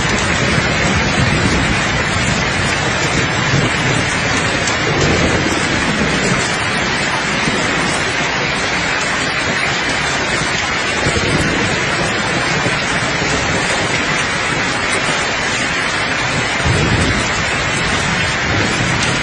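Steady, dense rain with faint rolls of thunder, one swelling about five seconds in and another near the end.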